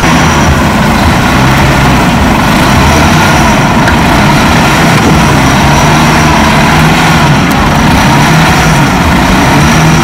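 Heavy earthmoving machine's diesel engine running steadily and loud, with no letup.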